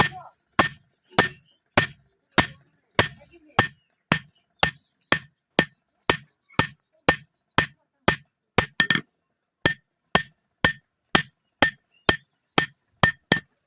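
Blacksmith's hand hammer striking iron on an anvil in a steady rhythm, a little under two blows a second, each blow ringing briefly. About two-thirds of the way through comes a quick flurry of light taps, and the blows come a little faster near the end.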